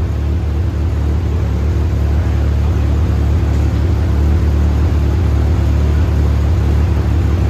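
Rotary car engine running at a steady low speed on the dyno, an even low rumble that grows slightly louder.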